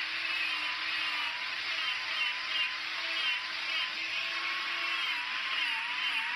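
Angle grinder running with a carving disc, grinding out the hollow of a wooden bowl: a steady whine whose pitch dips and wavers a little near the end as the disc is pressed into the wood.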